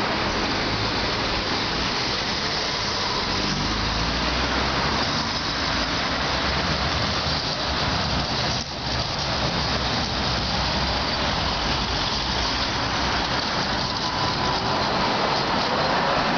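A two-car Tatra T3 tram approaching and passing close by over a steady rush of street and running noise. A faint motor whine rises near the end as the tram goes past.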